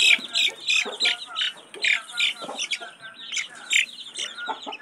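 Newly hatched chicks peeping: many short, shrill, downward-sliding peeps several times a second, overlapping, while one chick is held in the hand for an eye-drop vaccine.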